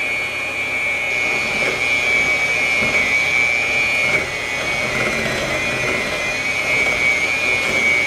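Electric mixer running on low, beating cake batter: a steady high-pitched motor whine with a slight wobble in pitch.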